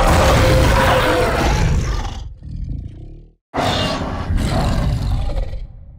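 Edited monster roar sound effects for a dragon-like kaiju: two long roars, the first about two seconds long, the second starting about three and a half seconds in and trailing off.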